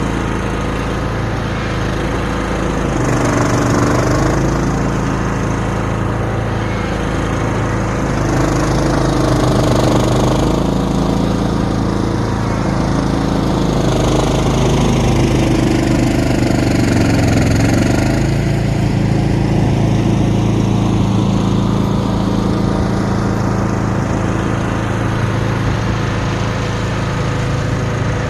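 Cub Cadet XT1 lawn tractor engine running under load while driving a three-stage snow blower attachment through snow, with a steady rush of noise underneath. The engine note wavers and sags briefly a little past the middle, then picks back up.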